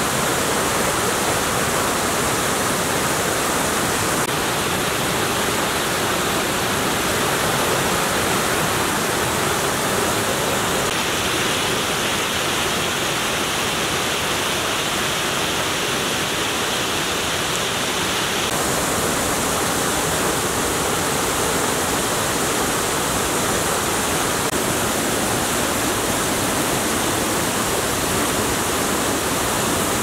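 Tomara Waterfall's water pouring in many strands down a rock face in heavy flow: a steady rush of falling water. Its tone shifts slightly a few times, about 4, 11 and 18 seconds in.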